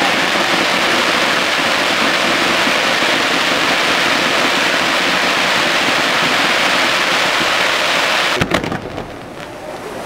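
Fireworks giving off a dense, steady crackling hiss of many small pops merged together. About eight and a half seconds in a single thump cuts it off, and the sound turns much quieter.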